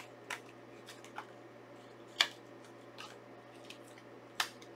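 Hands handling a Blu-ray steelbook case and its paper inserts: a scatter of sharp clicks and light rustles, the sharpest about two seconds in and another near the end, over a faint steady hum.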